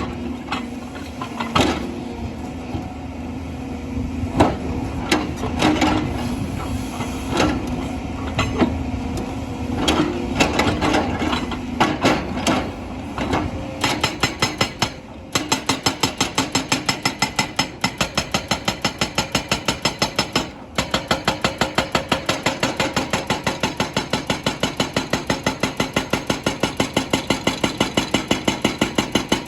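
An excavator's engine runs while stones knock and clatter irregularly. About halfway through, a hydraulic rock breaker starts hammering in rapid, even blows, pausing briefly twice.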